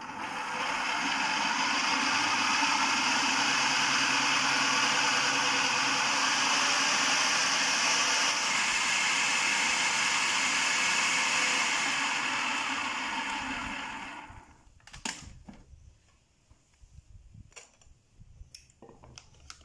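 Food processor motor blending thick mayonnaise: it starts up, runs steadily, then winds down and stops about fourteen seconds in. A few light clicks and knocks follow near the end.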